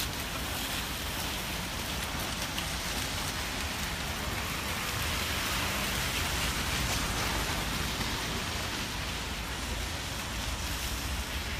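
Steady, rain-like hiss of wet snow falling, with a low rumble of wind on the microphone.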